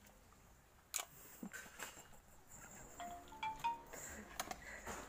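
Faint clicks and light plastic rattles as wiring and a small plastic ECU box are handled, with a short chime of a few tones stepping upward about three seconds in. No engine running.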